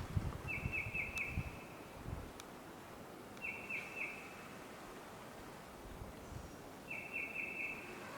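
A bird calling three times, each call a quick run of three or four short notes at a steady pitch, repeated about every three seconds. Low rumbling noise runs through the first couple of seconds.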